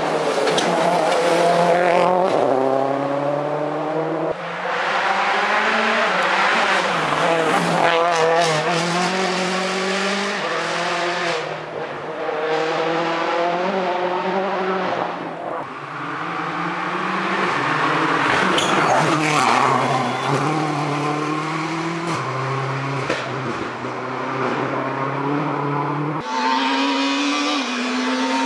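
Rally cars' four-cylinder engines revving hard on a tarmac special stage. The engine note keeps climbing and dropping in quick steps with the gear changes as the cars approach and pass.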